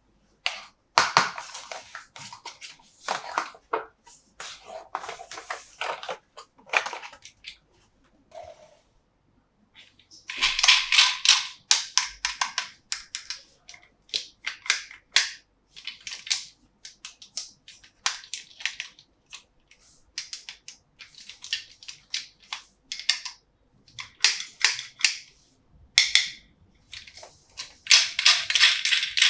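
Plastic toy parts and packaging being handled by hand: irregular clicks and snaps, with two longer spells of crinkling, one about ten seconds in and one near the end.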